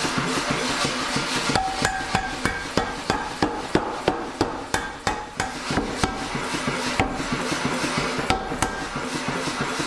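Hammer blows on hot C45 steel over an anvil, a quick run of strikes at about two to three a second, each with a short metallic ring from the anvil, thinning out to a few single blows near the end. A steady background noise runs underneath.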